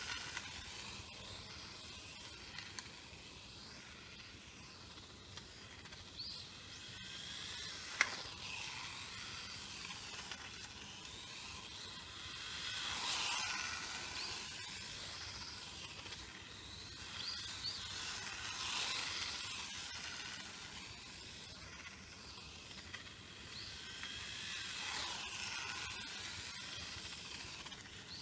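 Wltoys K989 1:28-scale RC car running on asphalt: a high motor whine and tyre hiss that swell three times as the car passes near the camera. A single sharp click sounds about eight seconds in.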